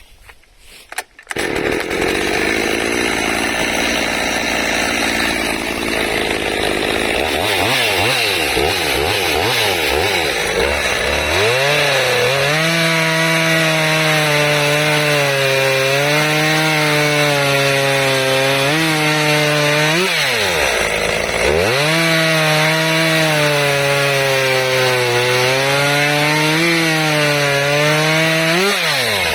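Small two-stroke chainsaw running at high revs and cutting wood. It comes in loud about a second in, and its engine note wavers and sags repeatedly as the chain bites into the cut, dropping sharply twice before picking up again.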